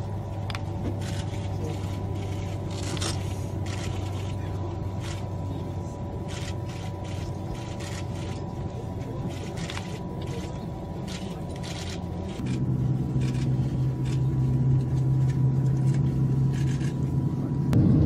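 Cabin noise of a Japanese maglev test train running at speed: a steady low hum with faint whining tones and light ticking rattles. About two-thirds through it steps up louder, the hum a little higher.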